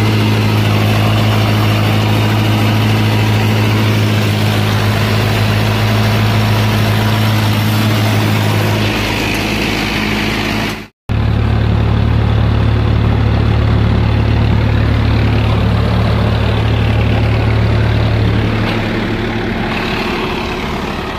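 Tractor diesel engines running steadily under load while pulling a super seeder through straw stubble: first a Mahindra Arjun Nova 605, then, after the sound breaks off for an instant about eleven seconds in, a Swaraj 963 FE in fourth low gear. The second engine's hum drops somewhat a couple of seconds before the end.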